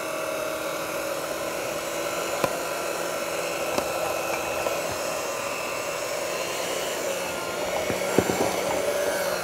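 Electric hand mixer running steadily, its twin beaters working flour into a thick, sticky dough in a glass bowl. A few light clicks sound over the motor's whine.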